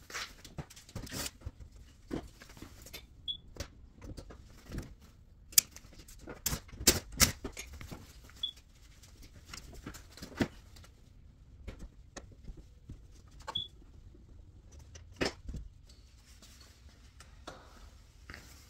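Irregular knocks, clicks and rattles as the front access panel of an air-conditioning air handler is taken off and handled, with footsteps on a tile floor. Three short, high chirps sound about five seconds apart.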